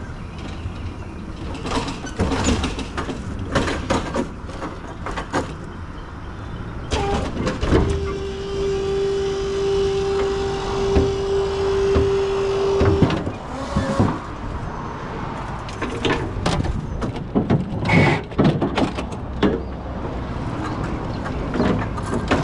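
Clanks, knocks and rattles of a metal hand truck stacked with soda cases being moved in a delivery truck's cargo box and wheeled over pavement. A steady hum holds one pitch for about five seconds near the middle.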